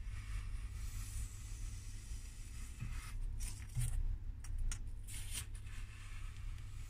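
Polystyrene foam cylinder scraping and rustling over a hot-wire foam cutter's table and along its metal fence as it is pushed through the wire to slice off discs, with several sharper scrapes from about three seconds in. A steady low hum runs underneath.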